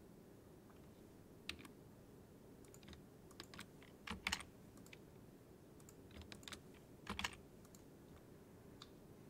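Scattered computer keyboard keystrokes and mouse clicks in small clusters, the loudest about four seconds in and again about seven seconds in, over faint room tone.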